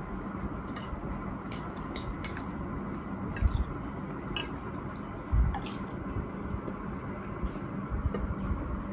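Metal spoon clinking and scraping against ceramic bowls while eating, a few scattered light clinks over a steady background hum. Two dull low thumps, about three and a half and five and a half seconds in, are the loudest sounds.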